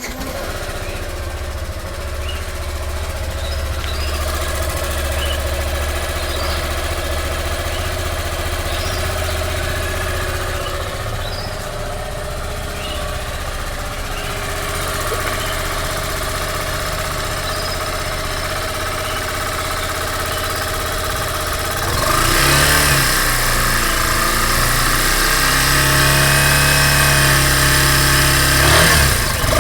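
Yamaha Fazer 150's single-cylinder four-stroke engine starting up and idling steadily, then revved up and down several times from about two-thirds of the way through. The new owner hears an odd noise in it after filling with ethanol, which others say is normal for a Yamaha.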